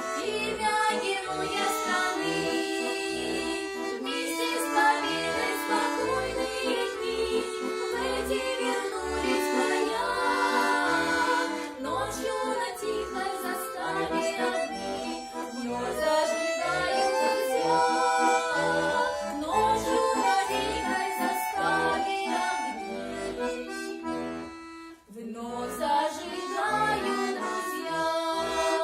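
Accordion music: a tune played over sustained chords, with a brief pause about 25 seconds in before the playing resumes.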